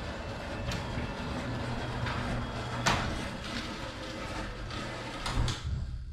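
A sectional garage door closing under a LiftMaster 8550 belt-drive opener: a steady low motor hum under the rumble of the rollers, with scattered knocks, then dying away near the end. The owner takes the way it stops for something stuck up in the door.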